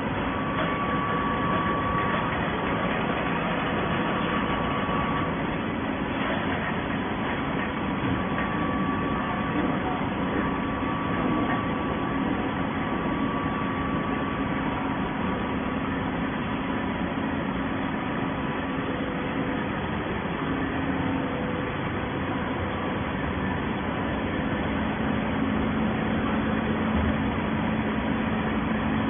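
Hydraulic cardboard baling press running: a steady machine hum with a few faint held tones over even noise.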